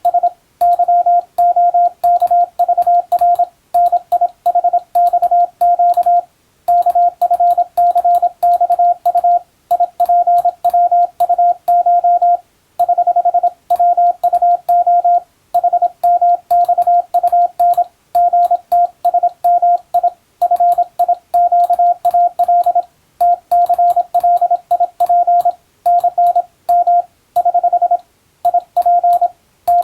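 Morse code (CW) being sent as a single steady beep tone keyed rapidly on and off into dots and dashes. Short gaps between words come every few seconds, and a faint click sounds at each key-down and key-up.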